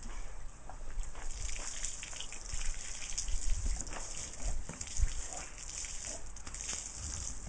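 Water from a garden hose spraying and splashing onto a puddle on wet concrete, a steady hiss with scattered patters. A dull thump about five seconds in.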